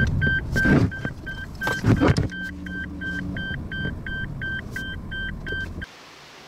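Car's turn-signal indicator ticking about three times a second as the car turns off the road, over the car's running noise. Two loud rumbling bumps come about a second apart in the first two seconds, then a steady low hum, and the sound cuts off abruptly near the end.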